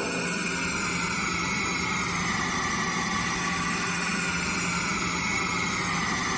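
A steady, unbroken droning rumble with a low hum underneath.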